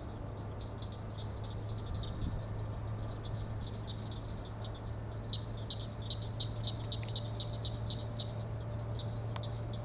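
Night chorus of frogs and insects in marsh: a high-pitched call pulsing about four times a second, over a steady low drone.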